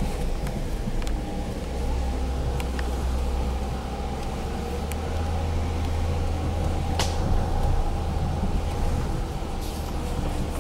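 2011 Jeep Grand Cherokee driving slowly on an off-road trail, heard from inside the cabin: a steady low rumble of engine and tyres with a faint steady whine over it. A sharp click comes about seven seconds in.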